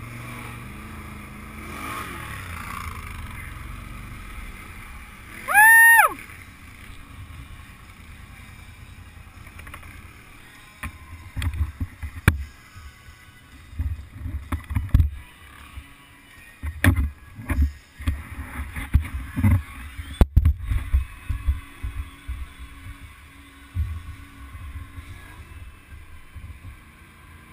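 ATV engine running steadily as the quad rides, with one loud, short high-pitched beep about six seconds in. Later, irregular low rumbling bursts come and go.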